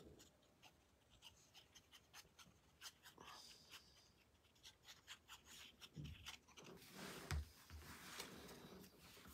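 Faint handling of paper: light rustling and small ticks as a sheet is held and glue is dabbed on from a fine-tip glue bottle, with a soft thud about seven seconds in.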